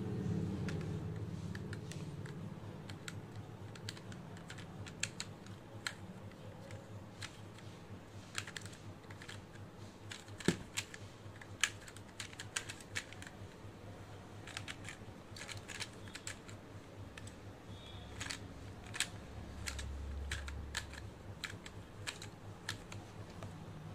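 Pyraminx twisty puzzle being turned fast during a timed speedsolve: irregular sharp clicks and clacks of the plastic pieces, some louder snaps around the middle.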